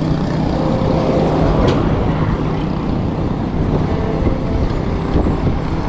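Steady wind rush on the microphone of a moving road bike, with road traffic going by.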